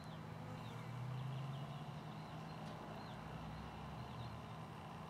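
Small birds chirping faintly in short repeated calls over a steady low hum, the hum swelling briefly about a second in.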